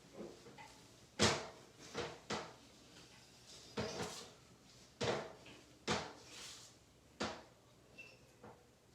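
A hot comb drawn through hair in repeated strokes, giving about seven short, sharp scraping knocks at irregular intervals of roughly a second.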